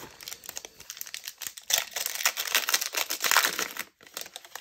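Foil wrapper of a Panini Elite trading card pack crinkling as it is torn open: a dense run of crackles, loudest in the middle, easing off near the end.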